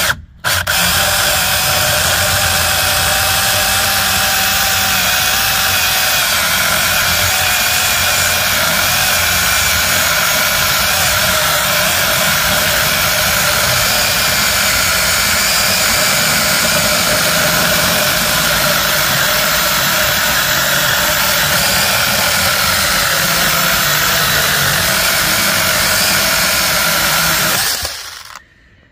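Alloyman 20V cordless mini chainsaw cutting through a dense magnolia log. The electric motor and chain run steadily under load, struggling in the hard wood. It cuts out for a moment just after the start, then runs without a break and stops near the end as the cut is finished.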